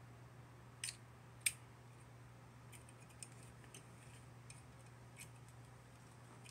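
Two sharp plastic snaps about half a second apart, about a second in, then a scatter of lighter clicks: Gundam model kit parts being cut from the plastic runner with nippers and handled. A low steady hum runs underneath.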